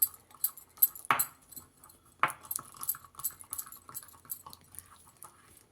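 A spoon stirring turmeric powder into honey in a bowl, tapping and scraping against the bowl in irregular light clicks, with two louder knocks about one and two seconds in.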